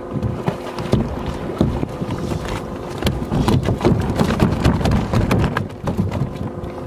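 A steady motor hum with a dense, irregular run of knocks and clatter over it, heaviest in the middle and easing off near the end.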